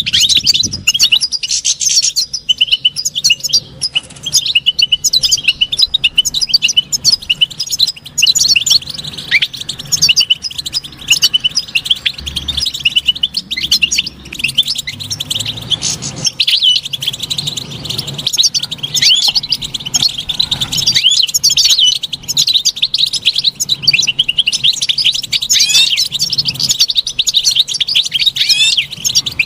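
European goldfinch song: a fast, continuous stream of twittering chirps and trills.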